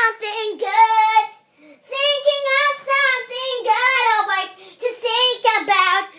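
A young girl singing unaccompanied in a high voice. Her phrases are held and wavering in pitch, with a short pause between them.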